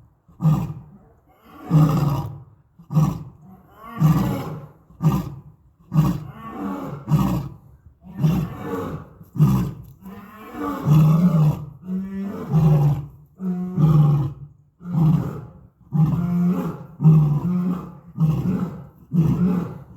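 Lion roaring: a long series of loud, deep calls, about one a second.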